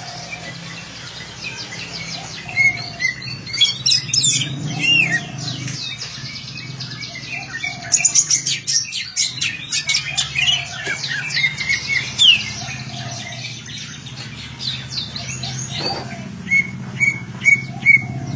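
Green leafbird (cucak ijo) singing: a fast, varied run of chirps and whistles in bursts, busiest about a third and half way through, ending in a few short repeated notes. A steady low hum runs underneath.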